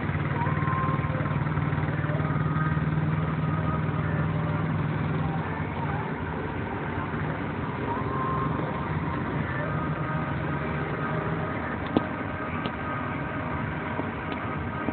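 Small engines of mini quads running as they lap a track, a steady low drone that is strongest in the first few seconds, with wavering engine tones over it. A single sharp click about twelve seconds in.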